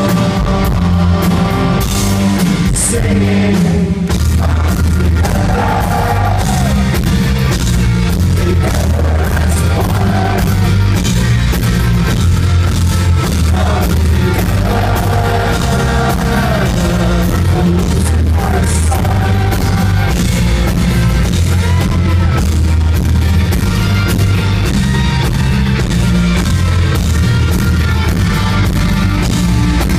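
Live rock band playing loud and steady, with heavy bass and guitars under a singing voice that comes and goes, heard from the audience in a concert hall.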